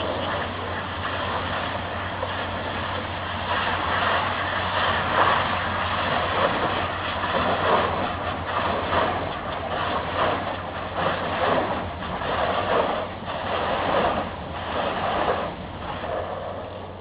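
High-pressure water jets from a brushless (touchless) car wash machine spraying a car, hissing and swelling in repeated waves over a steady low hum. The spray dies down near the end.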